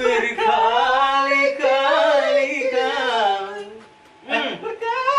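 A voice singing a dangdut melody with held notes that waver and bend in ornamented turns (cengkok). It breaks off briefly just before four seconds in, then resumes.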